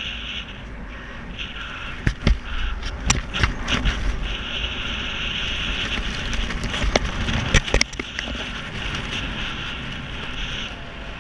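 Wind rushing and buffeting over a helmet-mounted camera's microphone during a parachute descent. Several sharp clicks and knocks come between about two and eight seconds in.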